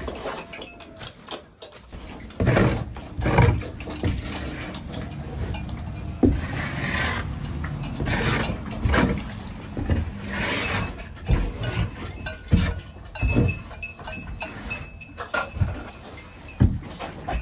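A long-handled shovel scraping and scooping wet cow manure off a barn floor: an irregular run of scrapes and knocks.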